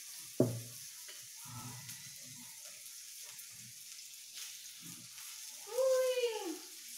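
Sliced beef sizzling on the hot top plate of an electric raclette grill, a steady high hiss. A sharp clink of cutlery about half a second in, and a short vocal sound near the end.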